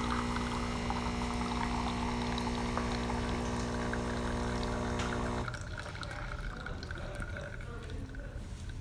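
DeLonghi Perfecta super-automatic espresso machine brewing a test shot: its pump hums steadily while coffee pours into the cup, then cuts off suddenly about five seconds in, leaving a quieter trickle and drips.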